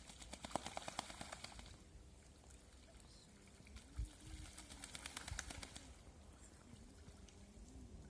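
Faint flapping of birds' wings in two rapid bursts, one at the start and one about midway, with a few low calls between.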